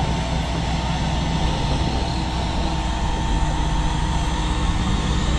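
Diesel engine of a big John Deere row-crop tractor running steadily under load, a continuous low drone while it pulls a planter through deep mud.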